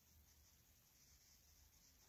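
Near silence: room tone with a faint steady hiss and low hum.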